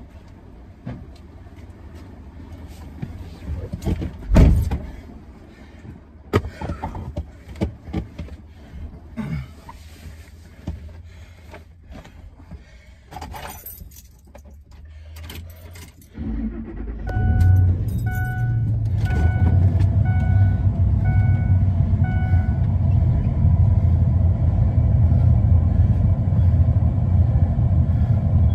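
Rustling, clicks and a jangle of keys, then a car engine starts about halfway through and runs steadily. Just after it starts, the car's warning chime beeps repeatedly for about five seconds.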